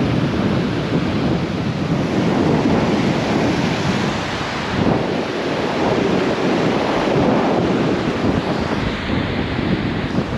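Wind blowing across the microphone, with surf breaking on the shore.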